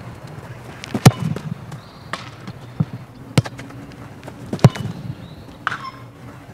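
A football being kicked hard: three sharp thuds about a second, three and a half and four and a half seconds in, the last the loudest, with fainter taps between.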